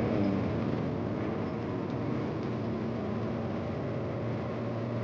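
A vehicle engine running steadily: a continuous low hum under an even rushing noise.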